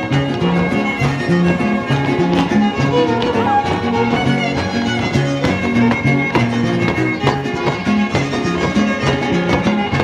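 Live son huasteco (huapango) from a trio huasteco: a lead violin playing over steadily strummed jarana and huapanguera, with a quick repeating bass-and-chord rhythm.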